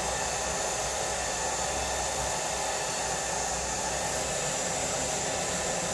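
Philips handheld hair dryer running steadily, blowing air while drying hair; an even rushing hiss with a steady motor hum that does not change.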